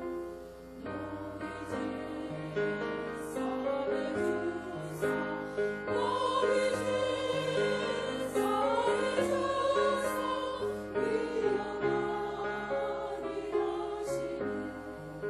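Women's church choir singing a hymn in Korean, with sustained accompaniment underneath.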